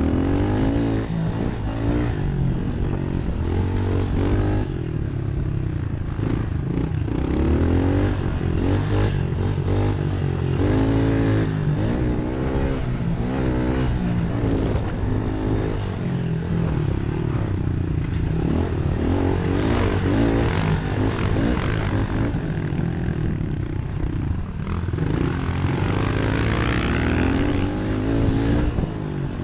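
Small single-cylinder four-stroke pit-bike engine under hard riding, revving up and dropping back again and again as the rider works the throttle through the track, heard close up from the rider's helmet camera with a low rumbling underneath.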